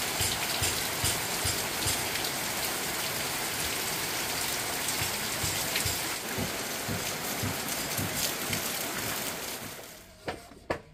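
Heavy rain falling steadily, with scattered drips, as a dense, even hiss. It cuts off abruptly near the end, and a couple of sharp knocks follow.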